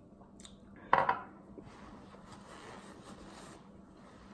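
A drinking glass with ice set down on a table with a single sharp knock about a second in, followed by about two seconds of paper towel rustling.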